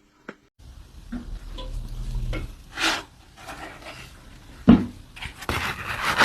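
Kitchen gadgets and utensils being handled: scattered knocks and scraping, with a sharp loud knock a little past the middle and denser scraping near the end.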